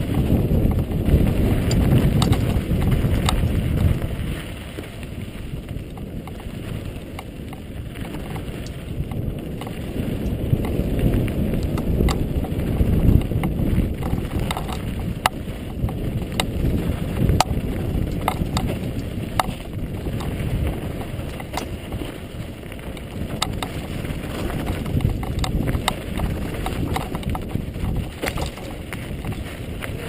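Mountain bike tyres rumbling over a loose, rocky dirt trail at speed, with wind buffeting the camera's microphone and frequent sharp clicks and rattles from gravel and the bike. The rumble is heaviest in the first few seconds.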